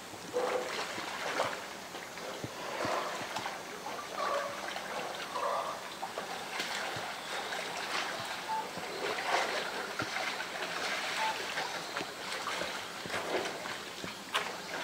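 Water splashing and sloshing as a polar bear wrestles a floating blue plastic tank in a pool, mouthing and shoving it, with a few sharp knocks now and then.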